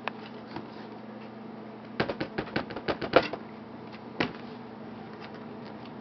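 Light clicks and taps from hands and a small tool working at the plastic underside of a laptop, around the screw that holds the hard drive in its bay. There is a quick run of clicks about two seconds in and a single tap a second or so later, over a faint steady hum.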